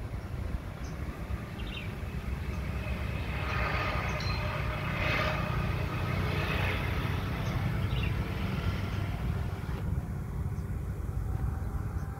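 A steady low outdoor rumble that swells for a few seconds in the middle, with a few short bird chirps.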